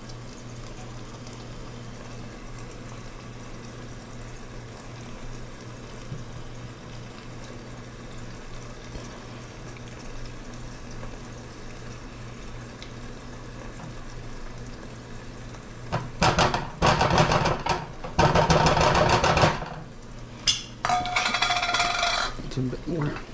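Cookware being handled while garlic is stirred in a small frying pan: a long stretch of only a steady low hum, then, about sixteen seconds in, several seconds of loud clattering and scraping of utensil against pan, ending with a short squeaky tone.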